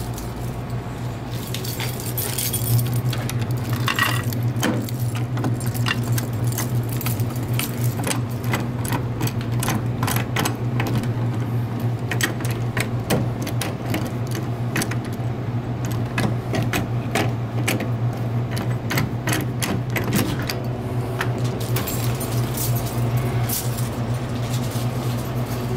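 A bunch of keys jangling and clinking, with many small clicks, as a soda vending machine's door lock is worked and the door opened. A steady low hum runs underneath.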